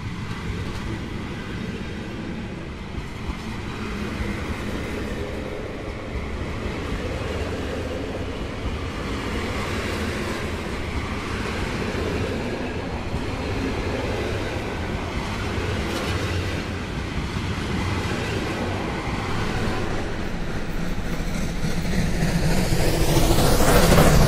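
Model trains running on a layout's track: a steady rolling noise of small wheels on rail. It grows louder over the last few seconds as a train passes close by.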